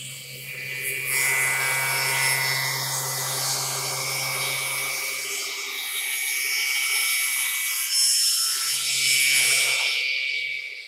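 CNC router running with its saw-blade aggregate head spinning, a steady high whine over a hiss as the head travels across the table. The sound builds about a second in and dies away near the end.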